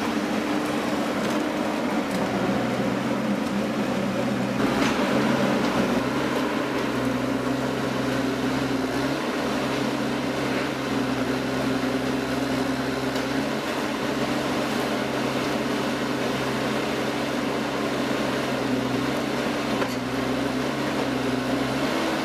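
A machine's motor or engine running steadily, its hum shifting slightly in pitch every few seconds as the load changes.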